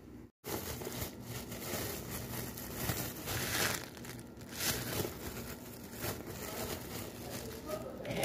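Thin plastic bag crinkling and rustling in uneven swells as hands press it down, twist and fold its open end shut.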